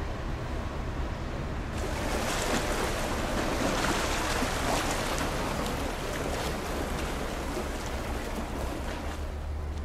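Water washing and splashing against the shore, a rushing hiss that grows brighter about two seconds in and eases near the end, with a steady low rumble and wind on the microphone underneath.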